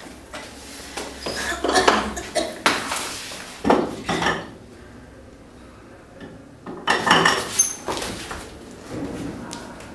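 Dishes and cutlery clinking and knocking in several separate bursts of clatter, as in a kitchen where things are being moved about.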